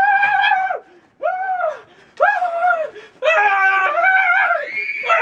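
A string of about five high-pitched screams, each under a second to about a second and a half long, as buckets of snow are dumped over bare skin: shrieks at the shock of the cold.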